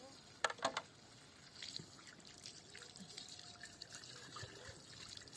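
Water trickling, with a few sharp knocks about half a second in.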